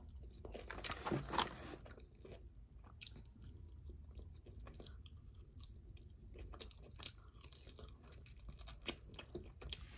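A person chewing and biting food close to the microphone, with small wet mouth clicks. The loudest bites come about a second in.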